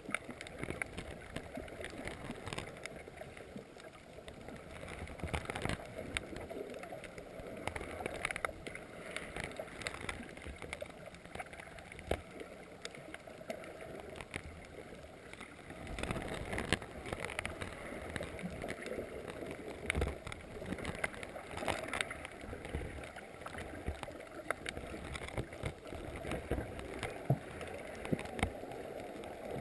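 Underwater reef ambience picked up through a GoPro's waterproof housing: a muffled, steady water noise with many scattered clicks and crackles, a little louder from about halfway through.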